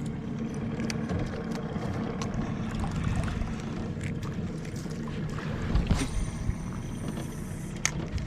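A fishing boat's motor running steadily with a low, even hum, with a few sharp clicks on board in the second half.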